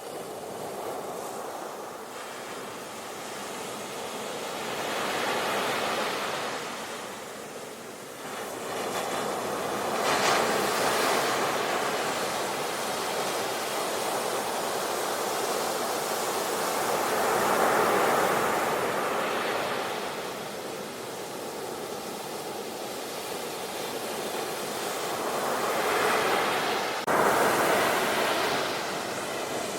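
Ocean waves breaking and washing on a shore, surging and falling back every several seconds, with a sudden jump in level near the end.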